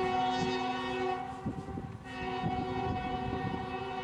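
CSX diesel locomotive's air horn sounding a chord in two long blasts, the first ending about a second in and the second starting about two seconds in, as it approaches a grade crossing. Knocks from the wheels on the rail joints run underneath.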